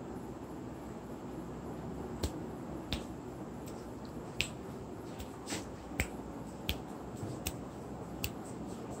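Dogs' claws clicking and tapping on a hard stone floor as they scramble and play: sharp, irregular clicks, about ten of them, starting about two seconds in, over a steady low background hum.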